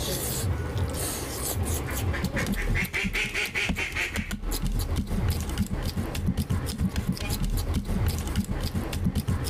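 Close-up eating sounds of a man eating curry and rice by hand: wet lip-smacking and sucking of food off the fingers, with many small clicks, and fingers gathering rice across a ceramic plate.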